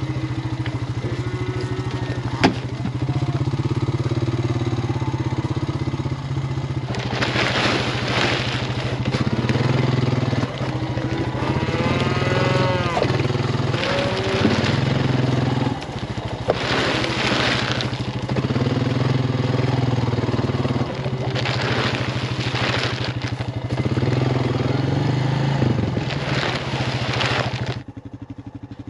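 Cattle mooing and bawling several times over a steady low engine hum.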